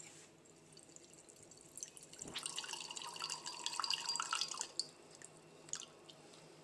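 Filtered rosé wine drawn off from a bottling bucket, splashing and trickling into a wine glass. It starts a little over two seconds in and stops near five seconds.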